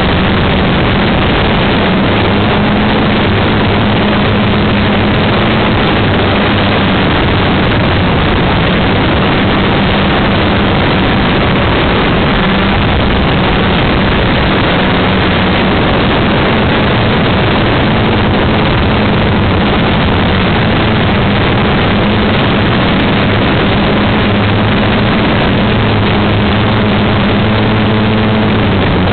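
Electric motors and propellers of a small quadcopter, heard from a camera riding on it in flight: a loud, steady drone with a low hum, mixed with wind rush on the microphone.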